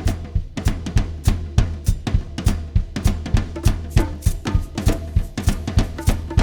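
A live big band's drum kit plays a fast, steady beat on bass drum, snare and cymbals over a low bass line. A few held notes from other instruments come in around the middle and near the end.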